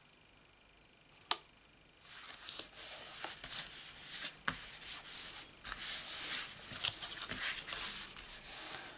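Palms rubbing and pressing over cardstock, a continuous scratchy paper-rubbing noise with many short strokes, smoothing a freshly glued panel flat onto a folded card. A single sharp click comes a little over a second in, before the rubbing starts.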